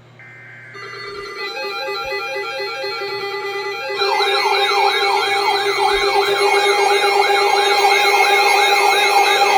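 Electronic emergency alert siren tones announcing an incoming weather warning. After a brief high buzz, a stepped two-tone alarm starts about a second in and grows louder, and a fast wailing siren sweep joins about four seconds in.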